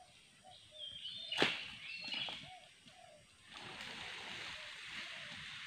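One sharp chop of an oil palm harvesting tool about a second and a half in, with short bird chirps around it, then a steady rustle of palm fronds from a little past halfway.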